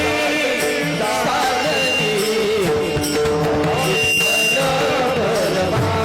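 Marathi kirtan devotional music: a held steady note under a wavering melodic line.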